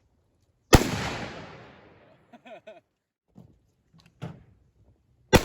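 Two gunshots about four and a half seconds apart, each a sharp crack with a long fading echo. A brief voice and a few small clicks fall between them.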